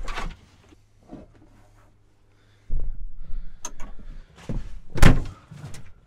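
Rustling and knocking from someone moving about in a combine harvester's cab with the engine not yet started. The handling noise picks up about three seconds in, and there is one loud thump about five seconds in.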